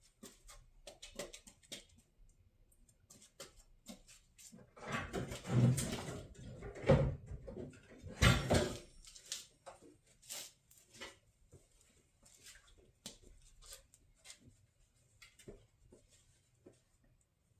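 Scattered light clicks and knocks, with a louder stretch of rustling and thumps about five to nine seconds in: handling noise around the engine bay.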